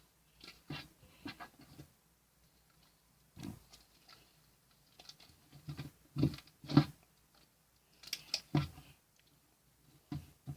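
Irregular soft knocks and clicks, a dozen or so, in a small room, with short quiet gaps between them; the loudest come about six and eight seconds in.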